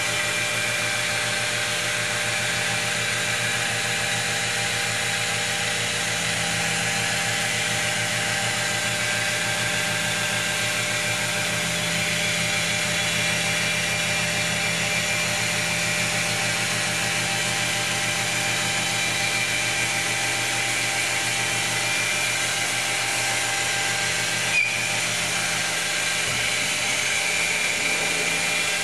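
A handheld wet stone polisher running steadily with a 220-grit copper-bond diamond pad pressed against a stone wall, its motor giving a constant whine. There is one short sharp click about four seconds before the end.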